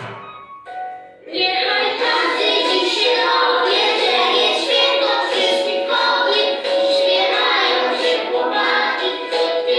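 A group of preschool children singing a song together, with music behind them. After a short lull at the start, the song starts again about a second in and carries on steadily.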